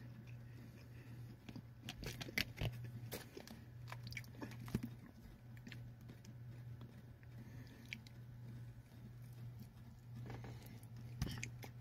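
A person chewing a fried chicken nugget with wet mouth clicks and smacks, mostly between two and five seconds in and again near the end as another bite goes in. A steady low hum runs underneath.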